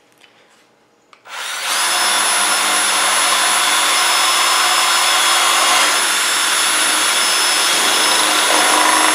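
Electric drill starting up about a second in and running steadily at speed, its bit boring through the die-cast aluminium casing of a hard drive. A constant high whine sits over the noise of the metal being cut.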